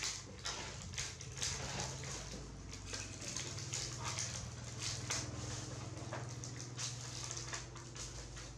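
Light rustles, scrapes and small taps of a baby monkey crawling on a woven plastic mat and wooden floor, over a steady low hum.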